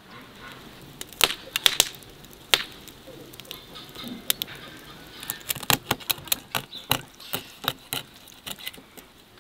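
Irregular sharp crackles and clicks, the loudest a little over a second in, followed by a dense run of smaller ones in the second half.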